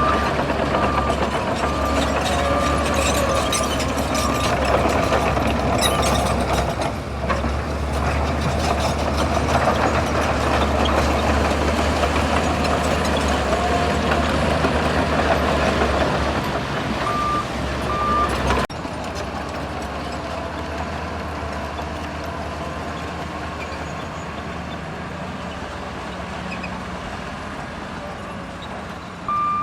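Shantui bulldozer's diesel engine working under load, with a reversing alarm beeping about twice a second early on and again briefly later. About two-thirds of the way through the sound drops suddenly to a quieter, steadier engine running.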